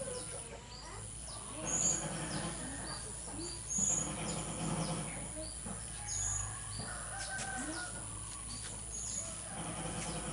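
Blue-crowned hanging parrot giving a short, shrill, very high call, repeated about every two seconds, over other softer, lower bird sounds.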